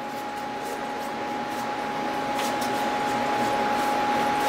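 Steady whirring hum of running shop machinery with a constant whine, and a few faint scratches as chips are brushed off an aluminium workpiece.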